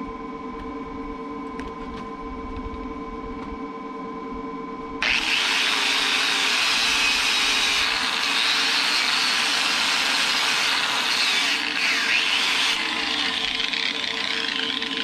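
Angle grinder starts suddenly about five seconds in and grinds on steel weld, its pitch wavering under load, easing off slightly near the end. A steady hum runs underneath.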